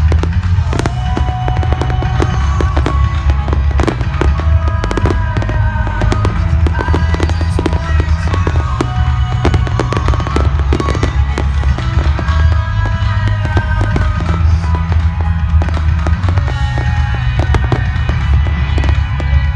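Fireworks going off: rapid bangs and crackles throughout, over loud music with a heavy bass line.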